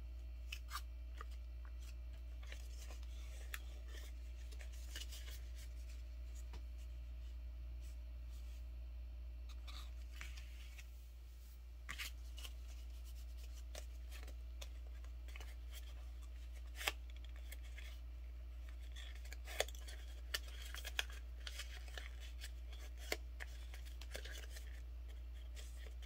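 Sheet of paper rustling and crinkling as it is handled and its folds are worked by hand, with scattered sharp crackles as creases snap, several in the second half. A steady low hum runs underneath.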